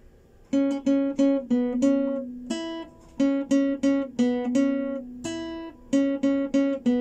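Classical guitar fingerpicked in single notes: a slow six-note phrase, five plucks on the second string (open B and the C-sharp at the second fret) followed by the open first string E, played three times.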